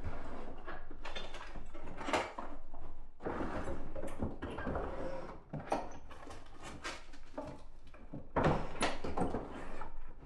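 Wooden drawers of an old chest of drawers being pulled open and pushed shut, with hands rummaging through their contents: several wooden scrapes and knocks.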